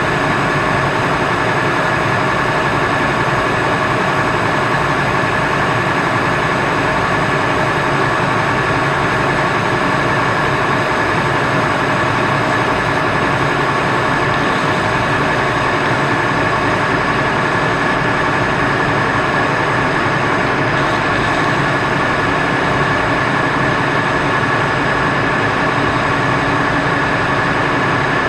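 Metal lathe running steadily while its cutting tool squares up the end face of a spinning metal workpiece in the chuck. Steady high ringing tones sound over the cutting noise: tool resonance (chatter) from a boring bar that was dulling and giving poor cuts.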